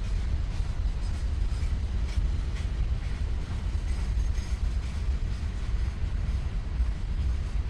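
Freight cars of a slow-moving Norfolk Southern mixed freight train rolling along the track with a steady low rumble and faint, irregular light clicks from the wheels.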